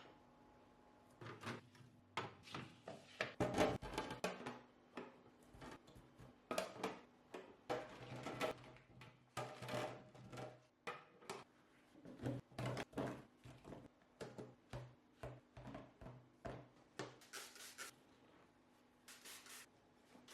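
Food containers and packaging being handled and set down, making an irregular series of soft knocks, taps and rubbing sounds.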